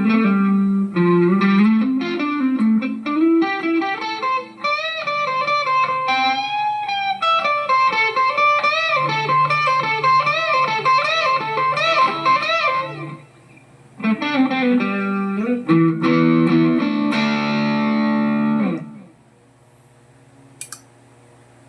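Electric guitar played through a Mooer GE150 Pro Li multi-effects processor: a melodic line with bent, wavering notes and chords. The playing stops about nineteen seconds in, and a couple of small clicks follow.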